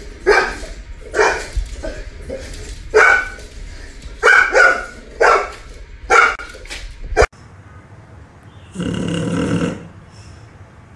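A small dog barking, about seven short barks over seven seconds, ending in an abrupt cut. Then a sleeping English bulldog snoring, one long snore about nine seconds in.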